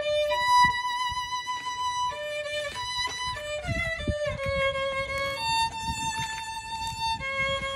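Solo violin playing a slow melody of long held notes.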